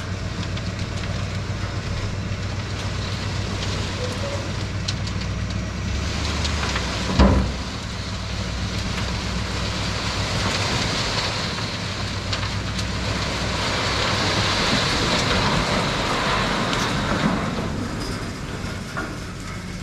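Load of cut trees, dirt and rocks sliding and rattling out of a tipped dump trailer bed over a steady motor hum. One heavy thump about seven seconds in, and the crackling of the sliding load swells in the middle of the stretch.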